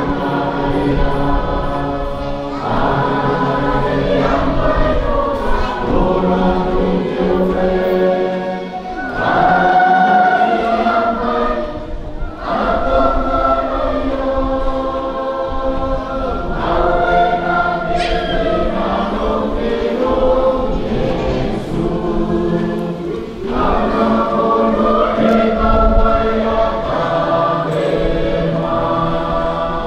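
A choir singing in harmony, several voices holding long notes in phrases a few seconds long, with brief breaks between phrases.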